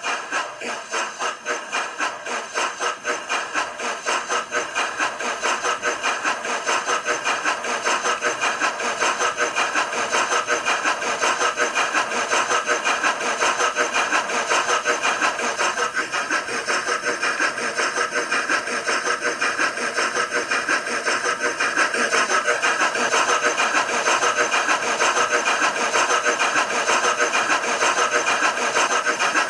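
Recorded steam-locomotive chuffing from the Digitrains sound decoder in a Hornby A4 model, heard through the model's small speaker. The beats come a few a second at first and quicken steadily, growing a little louder, as the locomotive picks up speed.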